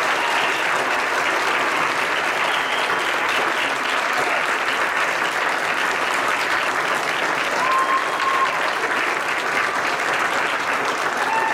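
Audience applauding steadily, with a short high call rising above the clapping about eight seconds in.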